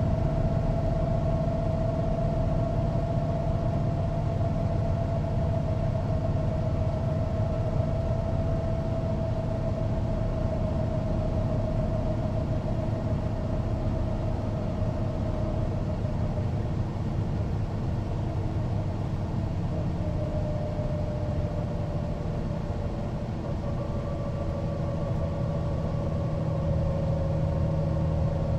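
Mercedes-Benz O405NÜ bus's diesel engine running steadily with a low rumble and a thin whine that slowly falls in pitch.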